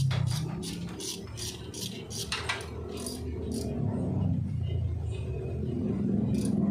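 Metal hand tools clicking and clinking against engine parts during cylinder-head assembly, a quick run of sharp clicks, about four a second, over the first three and a half seconds, then only one or two more, over a low steady rumble.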